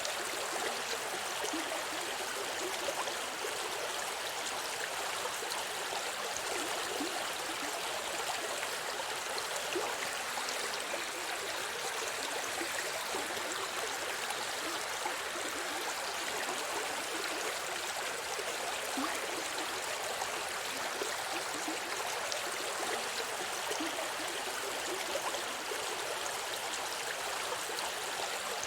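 A forest river or stream flowing steadily over rocks, a continuous hiss of running water with small splashes and gurgles.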